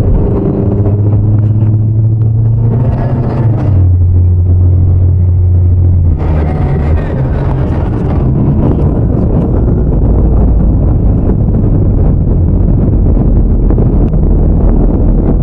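Inside a moving car's cabin: a loud, steady low engine drone that steps in pitch about four seconds in, giving way about six seconds in to a rougher rumble of tyres on the road.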